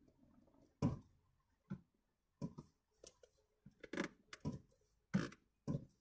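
About eight short, sharp plastic clicks and knocks at irregular intervals as the airbag module is pressed into a VW steering wheel to snap it onto its retaining clips; the click is the sign that the module is seated.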